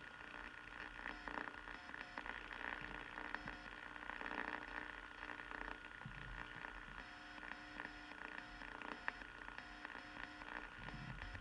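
Faint steady hiss and hum with scattered small crackles: background noise of the recording, with no other distinct sound.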